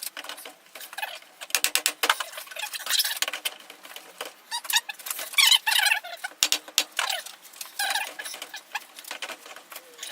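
Wire-feed (MIG) welder laying tack welds: several short bursts of dense crackling, separated by brief pauses.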